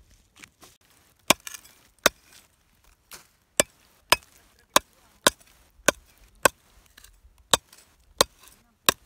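A hand digging tool chopping into hard, dry, cracked soil: a steady series of sharp strikes, about a dozen, roughly every half second or so, starting about a second in.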